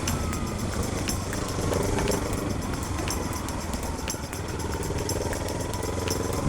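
Kawasaki Z300 parallel-twin motorcycle engine running at a steady pace while riding, with a low hum that dips slightly about midway.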